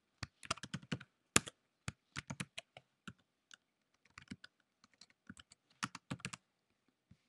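Typing on a computer keyboard: quick, irregular bursts of keystrokes with short pauses between them, as a name and the start of a sentence are typed into a form.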